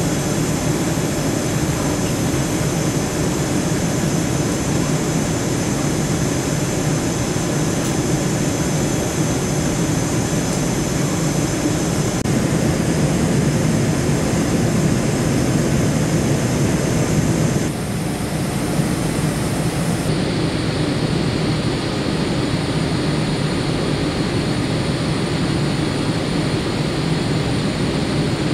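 Steady cabin noise of a jet airliner during its descent, heard from inside the passenger cabin: an even rumble of engines and rushing air. The level drops slightly about two-thirds of the way through.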